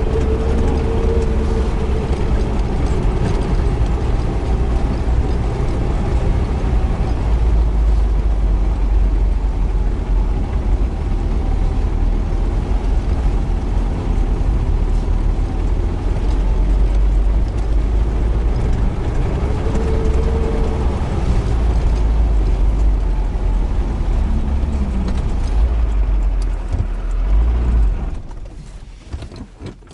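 UAZ Bukhanka van driving off-road through mud, its engine and drivetrain running with a steady heavy low rumble. The sound falls away sharply near the end.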